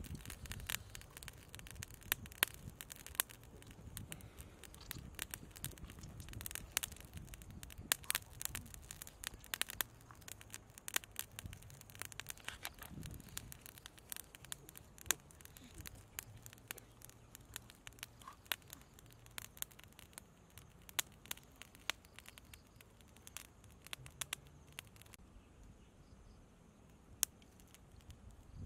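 Small wood fire crackling with irregular sharp pops, thinning out near the end, over low rustling of handling.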